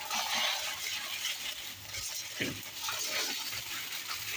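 Aluminium foil crinkling and rustling as it is folded around a tray of seasoned pork ribs, an irregular crackle with small clicks.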